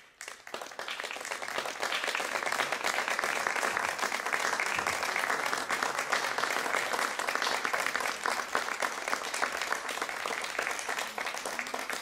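Audience applauding: the clapping starts abruptly, builds within about a second and a half, and holds steady.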